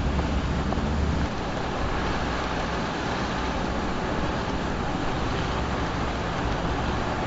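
Vehicles driving along a paved road: steady tyre and engine noise at cruising speed. The deep rumble drops off about a second in.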